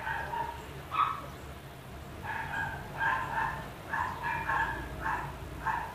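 A dog yapping in short, high barks: one at the start, a louder one about a second in, then a quick run of about three a second from a little past two seconds on.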